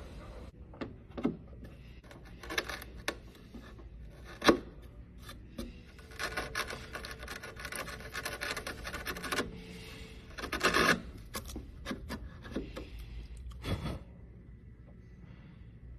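Hand work on wood: scraping and rasping strokes with scattered knocks and taps, a longer run of steady rubbing in the middle, then a loud scrape before the work stops near the end.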